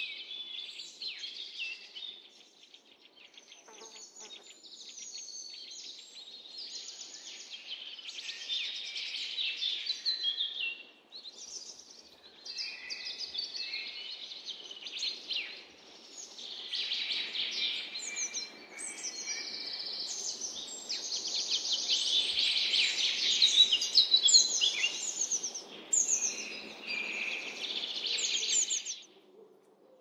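Songbirds singing, many chirping and trilling songs overlapping densely. The chorus grows louder toward the later part and cuts off abruptly near the end.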